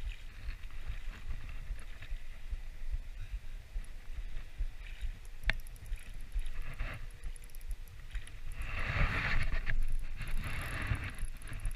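Wind rumbling on the microphone, with a sharp click about five and a half seconds in and a louder stretch of rustling noise near the end.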